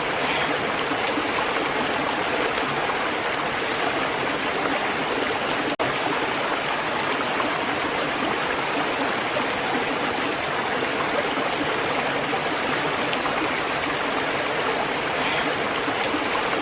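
Running water flowing steadily and evenly, with a split-second dropout about six seconds in.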